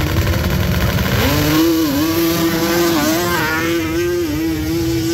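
Mini bike engine revving up sharply about a second in, then held at high revs with small dips in pitch, as on a wide-open drag run.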